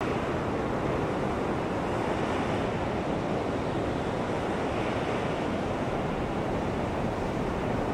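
Steady rush of a fast-flowing glacial meltwater river, an even noise of water with no breaks.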